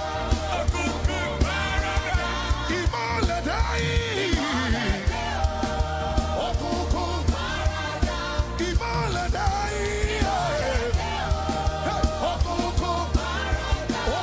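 Live gospel worship music: a band playing a steady drum beat over heavy bass, with a sung melody of held and sliding notes.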